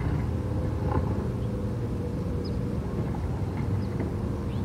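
Garbage truck's diesel engine running steadily at raised revs after a sudden rev-up, a low rumble with a steady hum over it.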